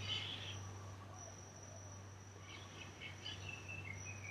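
Faint high-pitched insect trilling outdoors, coming in stretches, with a few soft chirps and a low steady hum underneath.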